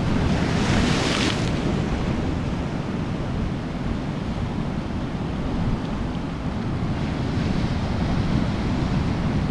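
Ocean surf breaking on coastal rocks, with one big wave crashing and spraying about half a second in, then the steady wash of foaming water. Wind buffets the microphone underneath.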